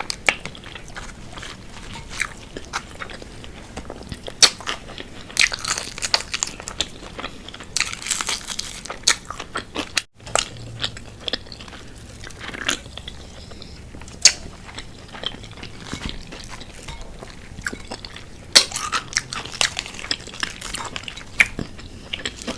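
Close-up crunching and chewing of crispy fried chicken wings: a quick, irregular run of sharp crackles as the breaded skin is bitten and chewed. The sound drops out for a moment about halfway through.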